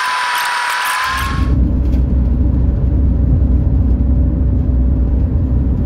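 Van driving along the road, heard from inside the cab. A hiss with a steady whine over the first second or so gives way to a loud, steady low road rumble.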